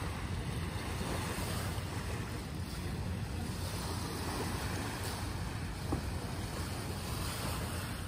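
Wind buffeting the microphone over the steady wash of small waves against a rocky shore.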